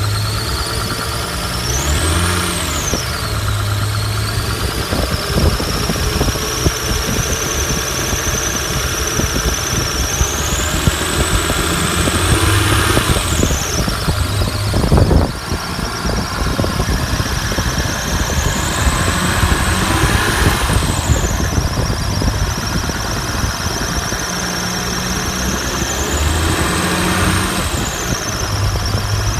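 Toyota Chaser JZX100 engine running with an abnormal high-pitched squeal from the engine bay. The engine is revved about four times, and the squeal rises in pitch with each rev and falls back as it returns to idle. A single sharp click is heard about halfway through.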